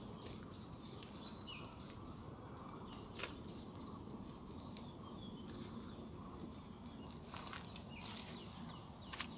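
Faint outdoor ambience: a steady high-pitched insect drone over low background noise, with a few light clicks.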